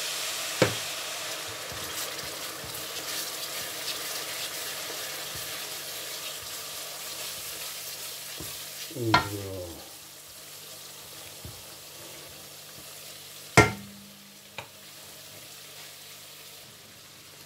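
Onion and spice masala with a little water just added, sizzling and bubbling in an aluminium karahi while it is stirred; the sizzle fades about halfway through. A few sharp knocks sound over it, the loudest about two-thirds of the way in.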